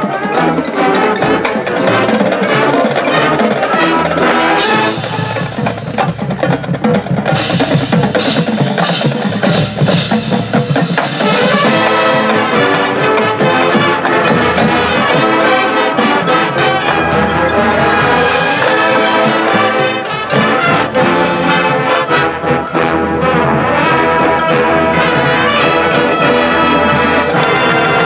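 Marching band playing: brass with drumline and front-ensemble percussion. Quick percussion hits dominate the first half, then full sustained brass chords take over.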